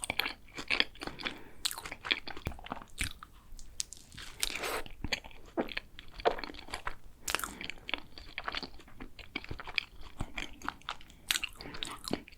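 Close-miked crisp crunching and chewing of a layered chocolate pastry, with many irregular sharp crackles and a few longer crunchy bites.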